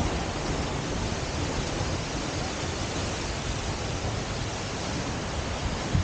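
Steady, dense rush of Seljalandsfoss, a tall waterfall plunging from a cliff, heard close up.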